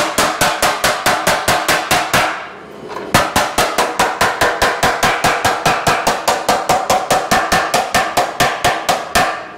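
Small hammer rapidly tapping a thin sheet-metal patch panel against the edge of a steel bumper, folding a bend into the panel: about six sharp, ringing metallic strikes a second. The tapping stops for about a second a little after two seconds in, then resumes.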